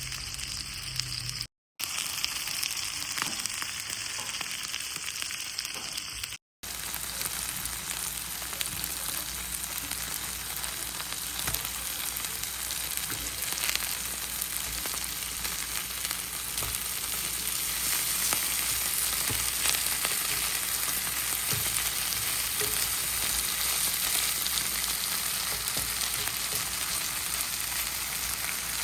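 Pieces of pork frying in a hot pan, a steady sizzle that cuts out briefly twice early on and grows a little louder in the second half.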